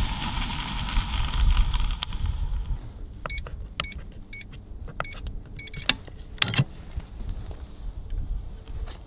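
Ferocon electronic safe's keypad beeping as a code is keyed in: about half a dozen short, high beeps. About a second after the last beep comes a single clunk as the lock releases. A rushing noise fills the first couple of seconds.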